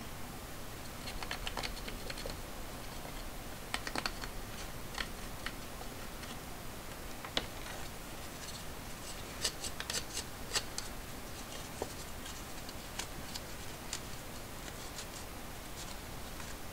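Cotton swab scrubbing the inside of a Casio fx-7400G Plus's plastic case, scratchy rubbing strokes mixed with light clicks and taps of the hard plastic being handled. A cluster of sharper clicks comes a little past the middle.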